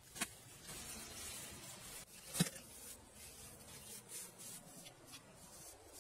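A small hand tool scraping and smoothing wet cement, faint rasping strokes, with two sharp clicks, the louder one about two and a half seconds in.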